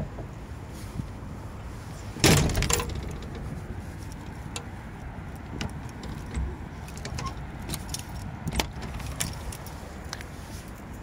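A loud clatter of several sharp knocks about two seconds in, then scattered light clicks and knocks over a steady low rumble.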